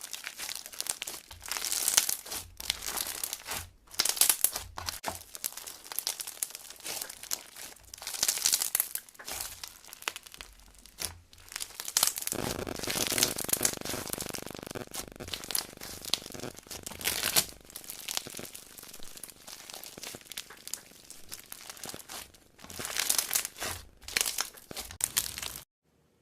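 Hands squeezing and working slime: irregular crackling, crinkly squishes. The sound cuts off abruptly near the end.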